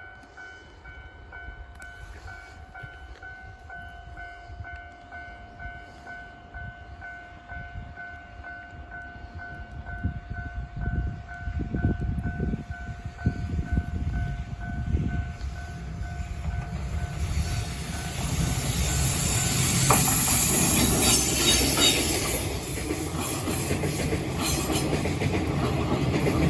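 Railway level crossing warning bell ringing in a steady, evenly repeating pattern while a freight train of Chiki flat wagons approaches, its rumble growing louder. Past the halfway point the train runs over the crossing with a loud rushing noise and clattering wheels that drown out the bell.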